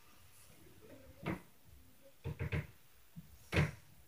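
Heavy thuds and bangs from the apartment upstairs, taken for stomping: one about a second in, a quick run of three a little after two seconds, and the loudest near the end.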